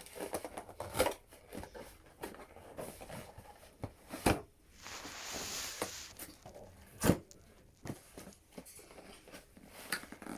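Toy packaging being handled and opened: scattered sharp knocks and clicks, with a longer tearing or rasping sound for a second or two around the middle.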